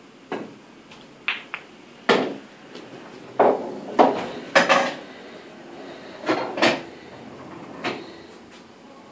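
Pool balls clacking on an English pool table: a cue strike on the cue ball, then a string of about a dozen sharp knocks of balls against each other and the cushions, spread over several seconds.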